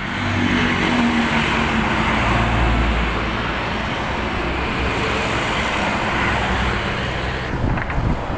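Road traffic running steadily, with a low engine rumble swelling about two to three seconds in.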